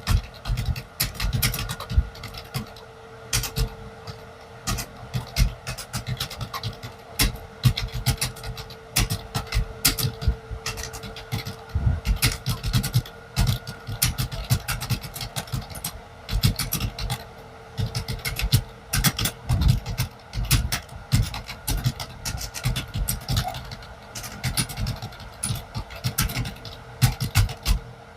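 Computer keyboard being typed on fast and continuously: a dense, irregular stream of key clicks, several a second, over a steady faint hum.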